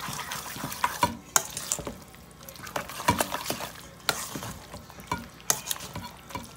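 A metal utensil stirring a thick, wet mixture of chicken, vegetables, gravy, sour cream and shredded cheese in a stainless steel mixing bowl, with irregular clinks and scrapes against the metal.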